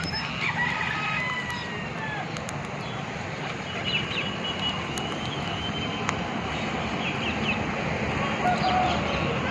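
Birds chirping and calling in short, scattered rising and falling chirps over a steady background hiss.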